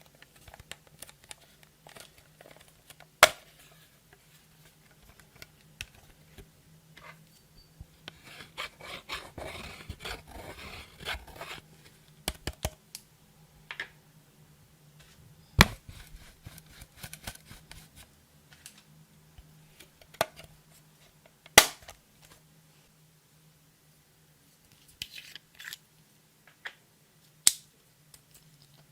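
Clear slime being handled and mixed: scattered small crackles and a few sharp, loud snapping pops several seconds apart, with a stretch of dense crackly squishing around the middle.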